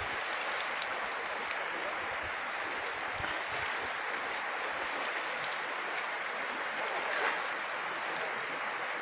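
Steady rush of a shallow river's flowing current.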